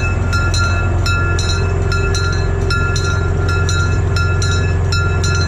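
Locomotive bell rung by pulling its overhead cord, clanging about twice a second, over the steady low running of the locomotive's engine.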